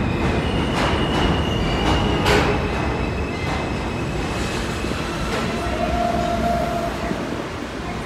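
R160A-1 subway train pulling into the station and slowing to a stop. Its wheels click over rail joints several times in the first couple of seconds, under a steady high wheel squeal, and the noise eases as it stops.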